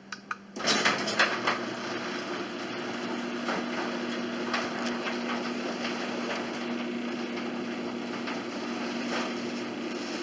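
Belt-drive Whisper Drive garage door opener running the sectional door along its tracks: a steady motor hum with light clicks and knocks from the moving door, starting with a jolt about half a second in. The door's hinges are freshly lubricated.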